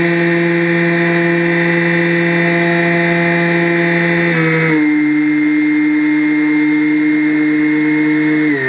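FPV drone's electric motors and propellers whining steadily in flight, the pitch stepping down about four and a half seconds in and again near the end as the throttle is eased.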